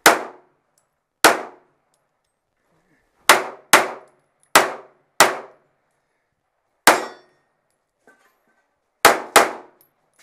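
Pistol shots fired one after another: nine sharp cracks at an uneven pace, some in quick pairs about half a second apart, each with a short ringing tail.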